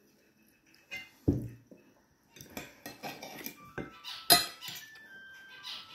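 Cutlery clinking and scraping on a plate while someone eats: a dull knock a little after a second in, then a run of sharp clicks, the loudest about four seconds in.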